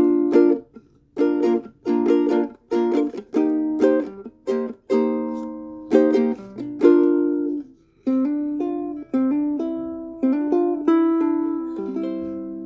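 Pineapple-bodied ukulele with a spruce top and maple, strung low-G with fluorocarbon strings, strummed in quick repeated chords. From about eight seconds in the playing slows to single chords that ring and die away near the end.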